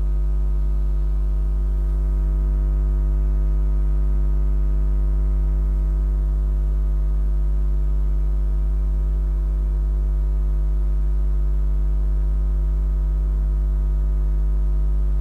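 Loud, steady 50 Hz mains hum with a ladder of overtones, unchanging throughout.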